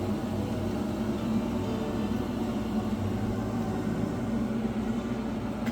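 Mr. Heater Big Maxx unit heater's exhaust fan running with a steady hum, the start-up stage before the igniter and burner come on.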